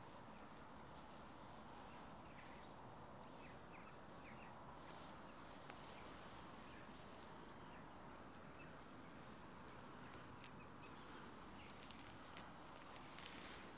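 Near silence: faint steady outdoor background hiss, with a few faint short high chirps a couple of seconds in and a few faint clicks near the end.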